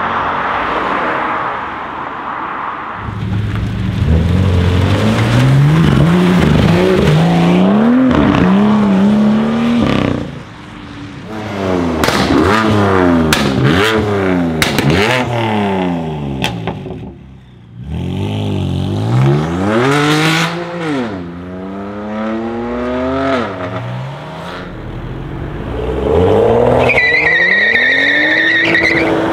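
Several modified BMW engines and exhausts in turn, revving up and down hard, with quick rev blips and sharp exhaust pops and crackles in the middle. A high squeal comes in near the end as a BMW 435i accelerates away.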